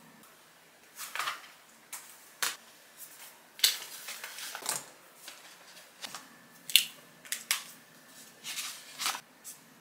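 Items being handled on a tabletop: irregular sharp taps and clicks with a few short rustles.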